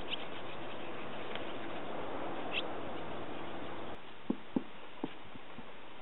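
Barn swallows giving scattered short chirps over a steady rushing noise. About four seconds in the rushing drops away and a few sharp clicks are heard.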